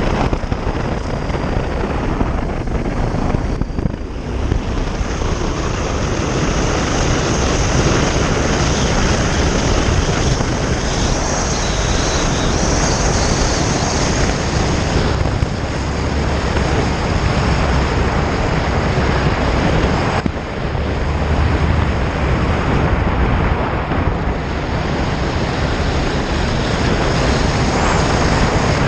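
Honda Varadero motorcycle riding along a gravel road: wind buffeting the microphone over the engine's steady run and tyre noise. The noise dips briefly twice, about four seconds in and again about twenty seconds in.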